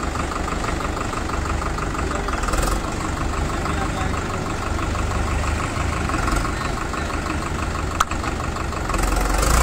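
Farmtrac 6055 4x4 tractor's diesel engine running steadily with an even, fast beat, growing louder near the end. A single sharp click about eight seconds in.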